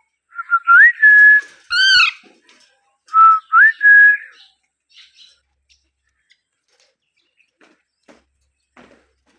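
Alexandrine parakeet whistling: a note that rises and holds steady, one harsh arched call, then two more rising, held whistles about a second later. Only a few faint clicks follow in the second half.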